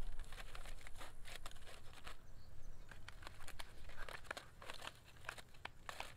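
Aluminium foil crinkling in quick, irregular crackles as foil-wrapped packets are picked up, shifted and set down on a griddle.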